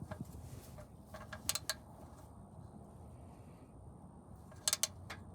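Light metal-on-metal clinks in two short groups of about three, over a faint low background hum.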